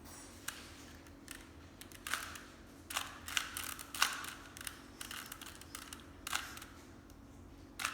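Plastic Rubik's cube layers being twisted, a string of irregular clicks and clacks about once or twice a second.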